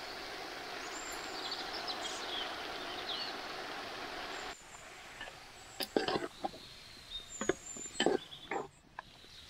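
A ladle stirring chopped vegetables and spice powder in a large aluminium pot, giving a few short scrapes and knocks in the second half. Before that there is a steady outdoor hiss that stops abruptly about halfway through.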